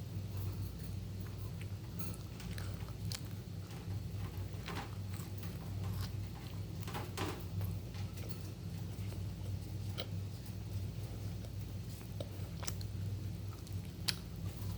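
Pet bird pushing and pecking at the floor with its beak: scattered light taps and scrapes over a steady low hum.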